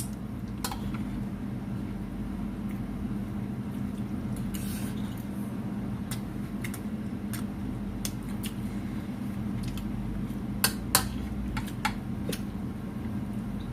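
Cutlery clinking against plates now and then during eating, with two sharper clinks close together later on, over a steady low hum.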